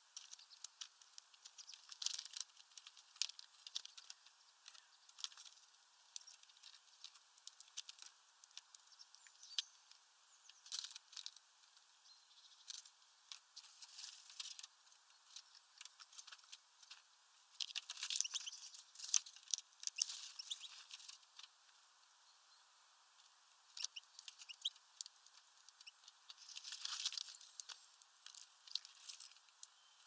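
A European greenfinch and a European goldfinch pecking and cracking sunflower seeds on a plastic feeder tray: irregular small clicks and taps, with denser runs of clicking every several seconds.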